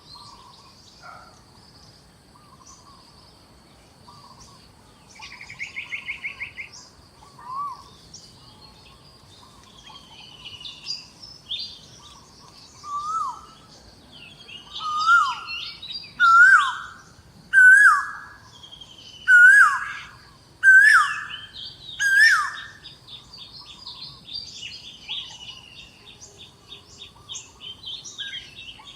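Several forest birds calling. One bird gives a loud whistled call that rises and then falls, repeated about seven times in quick succession through the middle, among shorter chirps, a brief fast trill and a run of rapid chatter near the end, over a faint steady high-pitched hum.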